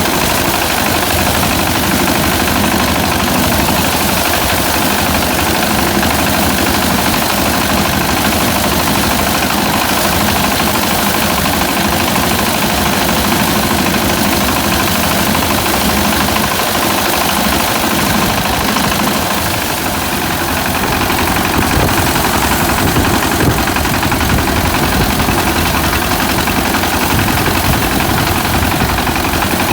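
Engine of a locally built rice-harvesting machine running steadily, dipping briefly in level about twenty seconds in.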